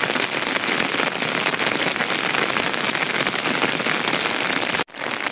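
Steady rain falling, a dense, even patter of drops with no let-up; it cuts out for an instant near the end.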